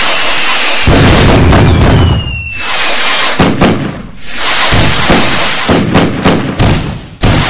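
Fireworks going off in quick succession: loud booms and crackle with almost no let-up, and high whistling tones falling in pitch about two seconds in.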